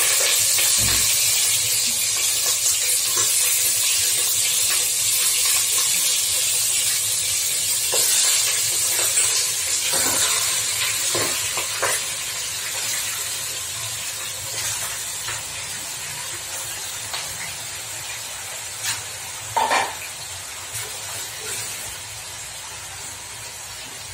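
Raw chicken pieces sizzling as they are dropped by hand into hot oil and ghee in a pot, with a few knocks of pieces landing. The sizzle is loud at first and slowly dies down.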